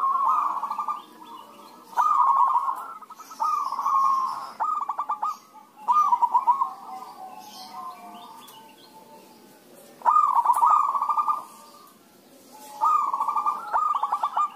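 Zebra doves (perkutut) cooing back and forth. About eight phrases, each a quick run of rapid coo notes lasting about a second, with a lull of a few seconds in the middle.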